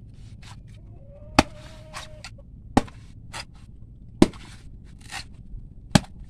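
Machete blade striking the hard shell of a mature coconut to crack it open: four sharp, loud knocks about one and a half seconds apart, with softer taps between them.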